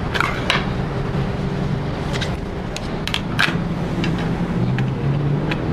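Irregular sharp clicks and taps of test leads and a power connector being handled over a laptop-style motherboard, over a steady low background hum.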